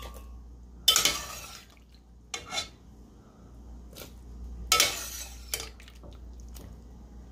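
A metal spoon knocking and scraping against a stainless steel pot as boiled tomatillos are scooped out of the cooking water, in a handful of separate clatters, the loudest about a second in and near five seconds.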